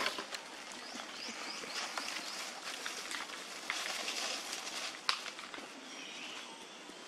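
Dry leaf litter rustling and crackling as macaques shift about on the forest floor, with a sharp crackle about five seconds in. Short rising bird chirps sound in the background, a few near the start and again midway.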